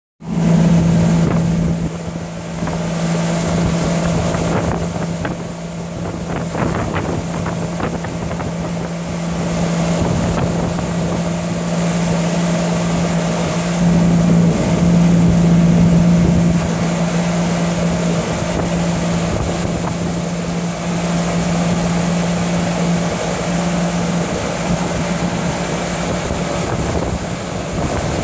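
Outboard motor running steadily at speed with a constant low hum, under a rush of wind and water noise.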